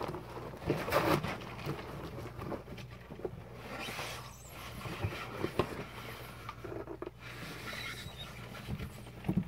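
Cardboard boxes and plastic packaging rustling and scraping as packages are unpacked by hand, with scattered light knocks, over a steady low hum.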